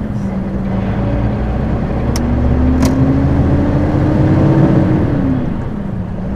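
HGV diesel engine running as the lorry moves along slowly. The engine note rises gradually from about two seconds in and falls back near the end. Two sharp clicks come in the middle.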